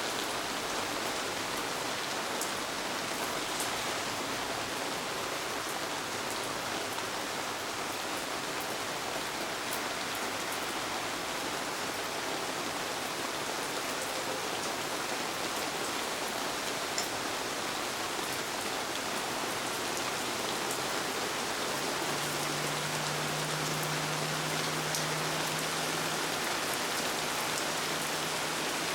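Steady rain falling, with a few sharper drips standing out. About two-thirds of the way through, a low steady hum comes in under the rain.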